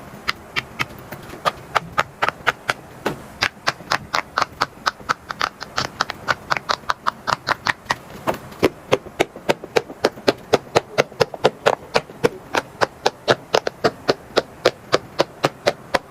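Silicone pop-it fidget toys being popped bubble by bubble with the fingers: a quick, steady run of soft pops, about three a second, getting a little faster and louder about halfway through.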